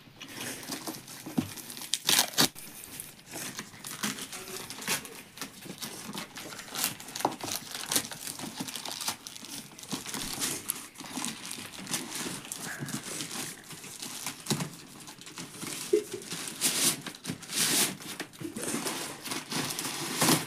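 Plastic courier mailer bag being torn open and crinkled by hand, with irregular rustling and sharp rips, loudest about two seconds in and again near the end.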